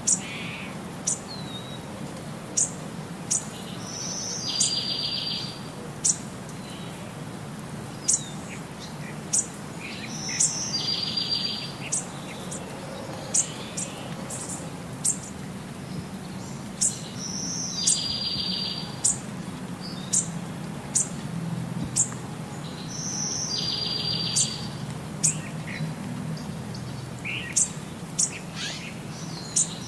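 Birds chirping: short high chirps about once a second, with a buzzy trill that comes back in the same shape about every six and a half seconds, as in a looped birdsong background track. A steady low hum runs underneath.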